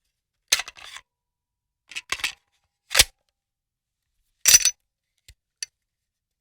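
Gun being reloaded: a series of separate sharp metallic clicks and clacks, about six in all, with dead silence between them.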